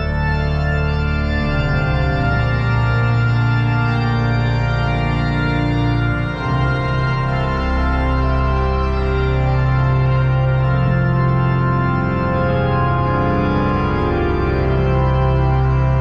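Church organ playing slow, sustained chords over held bass notes.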